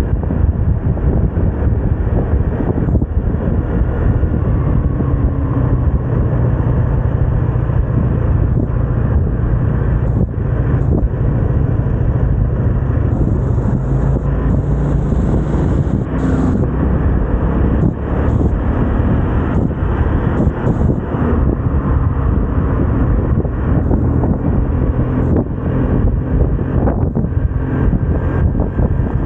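Vespa scooter engine running steadily on a ride, mixed with road noise and wind rushing over the microphone.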